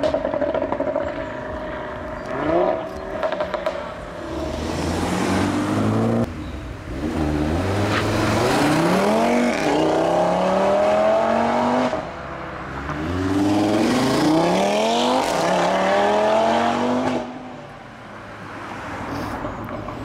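Audi RS3 Sportback 8V's 2.5-litre turbocharged five-cylinder engine, with a sport exhaust, accelerating hard twice, its note rising through several gears with a short break at each upshift. A quick run of exhaust pops comes a few seconds in.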